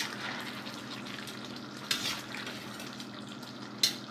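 A pan of chicken afritada simmering in tomato sauce, giving a steady sizzle. A slotted spatula stirs it and knocks against the pan about two seconds in and again near the end.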